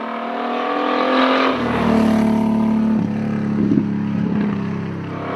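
Onboard sound of the 1941 GMC Jimmy Special's engine under hard load, its note climbing and dropping as it is driven through gears, growing louder over the first two seconds.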